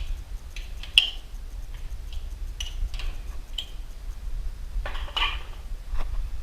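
Scattered light metal clinks and taps, a 1/2-inch wrench being fitted against the nuts on a garage door opener's chain adjustment. There are about half a dozen separate clicks, the sharpest about a second in and a short cluster near the end.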